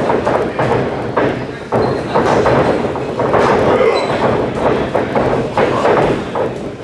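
Wrestlers' bodies thudding on the wrestling ring over a steady din of crowd voices and shouting, several hits spread through the moment.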